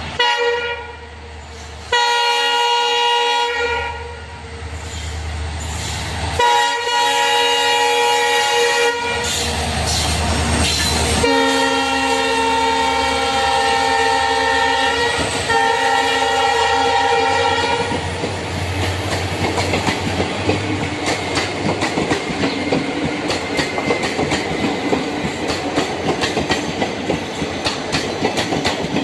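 Locomotive horn sounding in several long blasts, then the passing train's wheels clattering over the rail joints in a steady clickety-clack for the last ten seconds or so.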